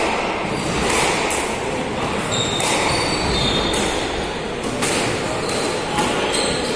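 Squash ball being played: sharp knocks of racket strikes and the ball hitting the court walls, irregular and roughly a second apart, ringing briefly in the enclosed court.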